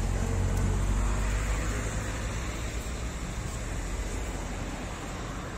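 Street traffic noise: a low rumble of passing vehicles over a steady hiss, loudest about a second in and easing off.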